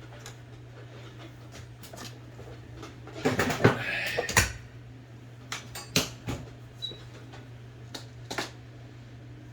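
Small metal parts and hand tools clicking and knocking against metal: a cluster of clattering knocks about three seconds in, then scattered light clicks, over a low steady hum.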